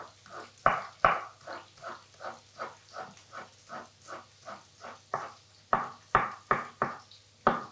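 Chef's knife chopping green garlic on a wooden cutting board: even knife strokes about three a second, with a few heavier thuds of the blade on the board near the start and toward the end.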